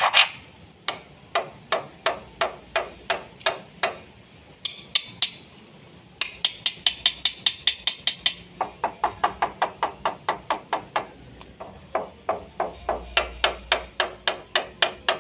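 Black-winged myna (jalak putih) singing a rapid series of short, sharp clacking notes, about three a second, quickening to about six a second for a couple of seconds in the middle.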